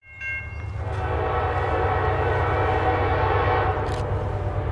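Diesel freight locomotives approaching, led by a GE ES44DC: a short horn chord right at the start, then a steady deep engine rumble that swells over the first second and holds.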